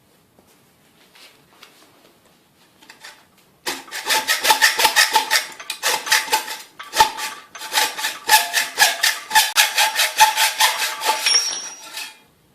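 A hacksaw cutting through a bicycle fork's steerer tube clamped in a cutting guide. Quick back-and-forth strokes with a ringing metallic note start about three and a half seconds in and stop just before the end.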